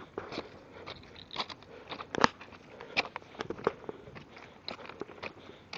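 Footsteps crunching on the stone ballast and sleepers of a railway track: an irregular series of crunches and clicks, the sharpest about two seconds in.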